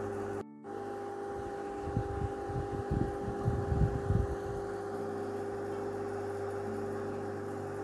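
Steady mechanical hum with a few fixed tones, like an appliance motor running. It cuts out briefly about half a second in, and a few low bumps come between about two and four and a half seconds in.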